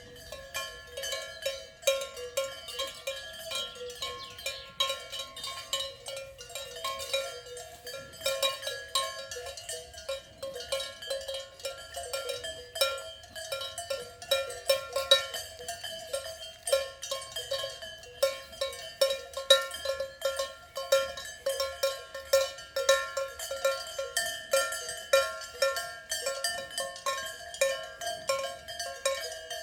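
Swiss cowbells worn by cows clanking irregularly, several strikes a second with no pause, the bells ringing over one another.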